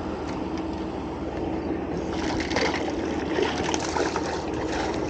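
Hooked smallmouth bass splashing and thrashing at the water's surface, in irregular splashes from about two seconds in.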